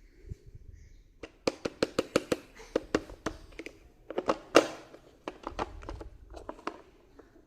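Plastic toy refrigerator parts being handled, a quick run of sharp clicks and taps. It starts about a second in, with a few louder knocks around four and a half seconds in.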